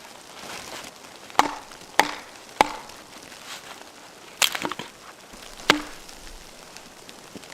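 Axe chopping firewood: three sharp strikes about half a second apart, then a quick cluster of blows and one last strike, each with a short wooden ring.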